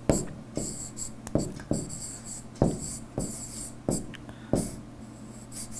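Stylus handwriting on a tablet screen: sharp taps roughly every half second to second, with short high scratchy strokes between them as the letters are drawn.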